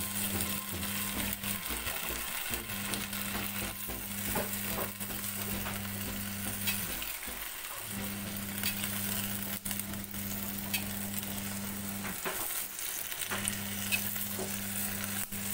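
Cassava leaves sizzling in a wok of hot oil and water while a spatula stirs and turns them, with scattered clicks and scrapes of the spatula against the pan. A steady low hum runs underneath and drops out briefly three times.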